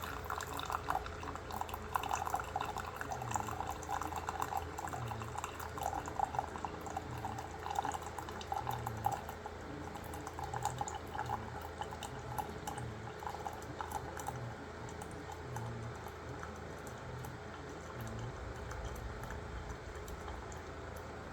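Water running and splashing in a kitchen sink, busier in the first half and calmer later.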